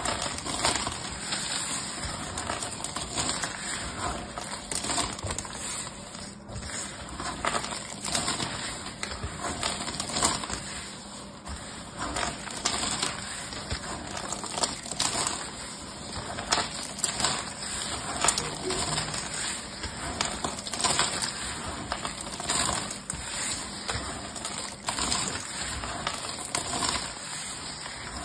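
Hands squeezing and pressing a pile of carved soap shavings, the brittle flakes crunching and crackling in dense, continuous clicks.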